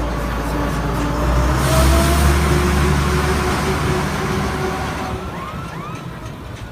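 Engine rumble of a motor vehicle, swelling about two seconds in and then fading away, as if passing by.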